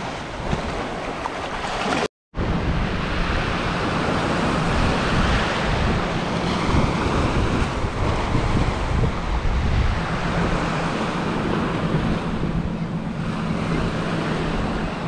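Small surf waves breaking and washing over the sand around the wader's feet, with wind buffeting the microphone. The sound cuts out for a moment about two seconds in.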